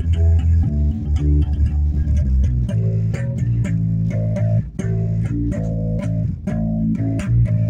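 Bass guitar played by plucking, a continuous line of low single notes that change every fraction of a second.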